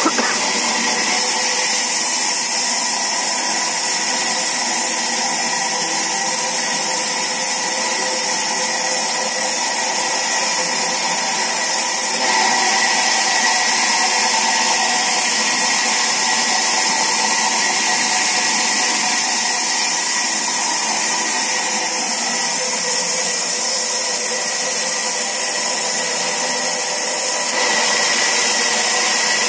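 Sawmill saw running steadily, an unbroken loud machine noise with a strong high hiss.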